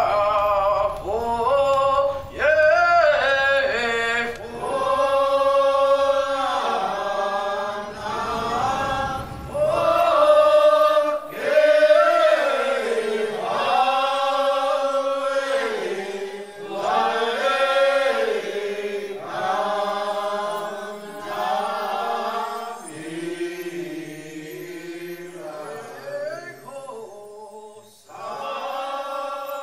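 Chant-like singing by voices in long held phrases of a second or two that rise and fall in pitch, with short breaks between them. A low rumbling noise lies under the singing for the first several seconds, then drops away.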